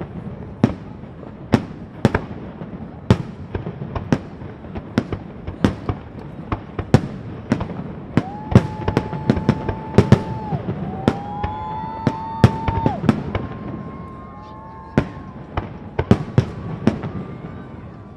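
Aerial fireworks bursting up close: a quick run of sharp bangs, one to two a second, over a low rumble. Several long whistling tones sound in the middle.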